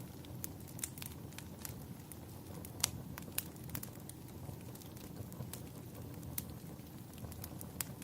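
Wood fire crackling and popping over a steady low rumble of flames, with irregular sharp pops, the loudest about three seconds in.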